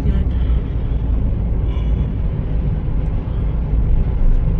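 Steady road and engine rumble inside a moving car.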